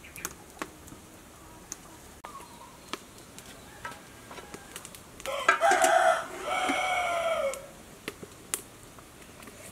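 A rooster crowing once, a drawn-out call starting about five seconds in and lasting about two seconds, falling in pitch at the end.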